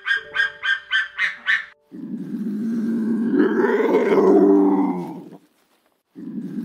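A rapid series of short honking calls, about six a second, stops about two seconds in. Then a large animal gives one long, deep call that rises and falls in pitch for about three and a half seconds, and a second deep call begins near the end.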